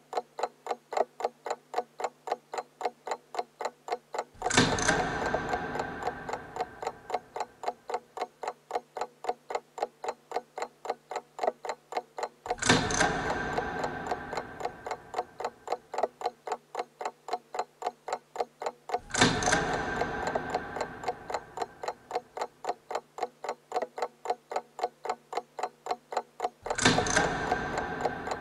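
Clock ticking quickly and evenly, about three ticks a second, over a low steady hum. Four times a loud resonant strike cuts in and rings out, fading over three or four seconds.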